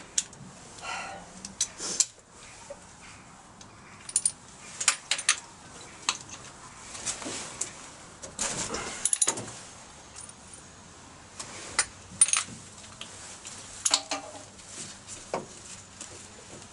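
Irregular metallic clicks and clinks of a ratchet and spark-plug socket loosening spark plugs, with small clusters of quick clicks now and then.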